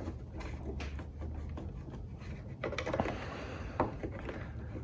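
A few faint clicks and taps as a flat screwdriver presses in and pries at a plastic push-pin clip, about three seconds in and again near the end.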